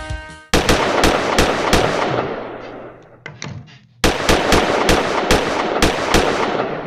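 Two loud bursts of sharp cracks over a dense crackle, each fading away over a couple of seconds. The first starts about half a second in and the second about four seconds in.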